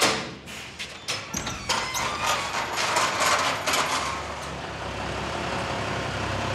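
A vehicle's engine running, with a run of knocks and clatters over the first few seconds before it settles into a steady hum.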